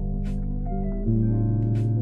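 Background music: sustained chords over a bass line that moves to a new note about a second in, with light regular hi-hat ticks.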